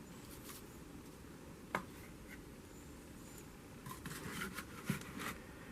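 Faint background noise with a few light clicks and soft rustles: one sharp click a little under two seconds in, then a cluster of small clicks and rustling toward the end.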